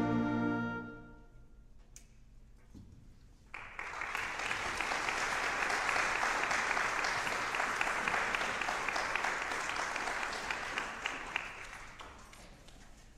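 A concert band's closing chord dies away within the first second; after a short hush, an audience applauds from about three and a half seconds in, the clapping tapering off near the end.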